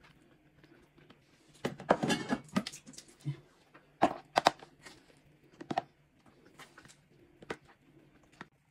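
Serving spoon scraping and knocking against a pot and plastic food containers as cooked rice is scooped out and packed. A cluster of clattering knocks comes about two seconds in, then scattered single taps and clicks.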